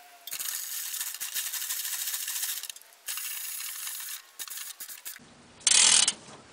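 Manual chain fall (chain hoist) being worked, its ratchet and chain giving off a fast, dense clicking in two long runs, then scattered clicks. Near the end comes a short, loud rattle.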